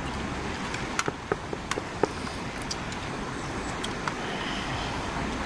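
Steady rushing of a river's flowing water, with a few light clicks and taps about a second or two in.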